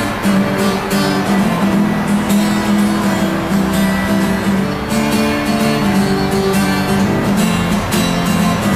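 Music led by a strummed guitar, playing in a steady rhythm.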